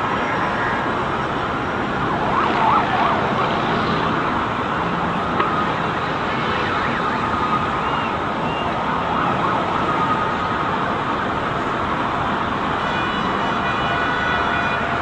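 Emergency vehicle sirens sounding over dense, steady street noise.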